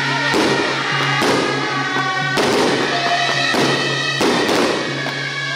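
Festive ceremonial music with long held tones over a low drone, broken by loud crashing hits roughly once a second.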